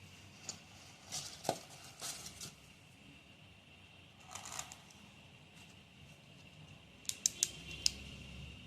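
Metal clicks and a brief scrape or rattle from a full-metal gas blowback airsoft pistol being handled: scattered clicks early on, a short rattle about four seconds in, then four sharp clicks in quick succession near the end.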